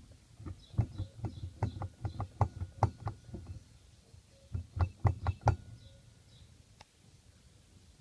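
VAZ 21063 driveshaft creaking and knocking at its elastic coupling (flex disc), a rapid series of short sharp creaks in two runs, the second briefly around five seconds in: the sign of a worn flex disc.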